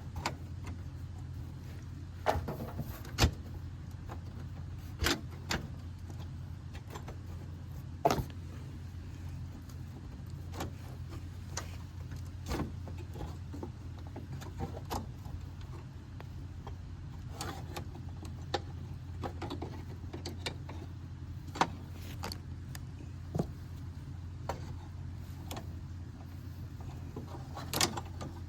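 Irregular clicks, clanks and knocks from hand work on a car, a few louder than the rest, over a steady low hum.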